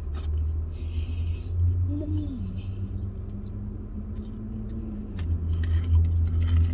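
Chewing a fried chicken sandwich, with soft mouth clicks and a short rustle about a second in. About two seconds in comes a closed-mouth hummed "mmm" that bends and then holds a low note for about three seconds, over a low steady rumble.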